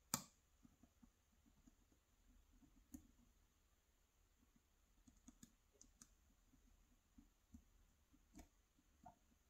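Quiet, scattered clicks of a steel lock pick and tension wrench working the pins of a Euro-profile cylinder lock, as the pins are lifted and set again; one sharper click comes right at the start, the rest are faint ticks spread through.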